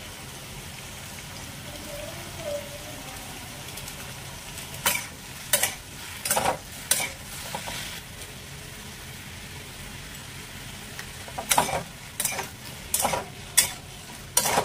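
Cubed pumpkin and potato sizzling in oil in a steel kadhai. A steel spatula clinks and scrapes against the pan in two spells of stirring, about five seconds in and again near the end.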